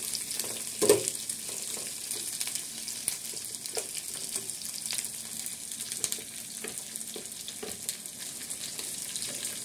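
Sliced pointed gourd sizzling as it stir-fries in hot oil in a steel pan, with a steel spatula scraping and clicking against the pan as it is turned. A louder knock comes about a second in.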